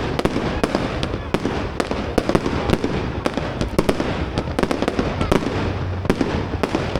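Fireworks display: a rapid, continuous barrage of bangs and crackling explosions, many reports a second with no let-up.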